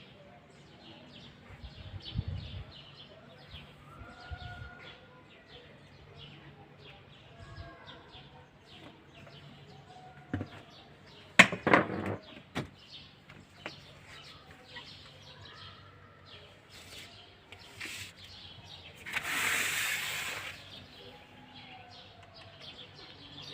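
Many small birds chirping and twittering continuously, with a few clearer whistled notes. A sharp clatter of clicks comes about halfway through and is the loudest sound. A rushing hiss lasts about a second and a half near the end.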